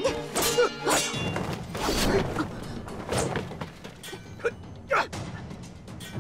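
Steel swords clashing in a fight: several sharp metal strikes with brief ringing, loudest and quickest in the first couple of seconds, then a few more spaced out.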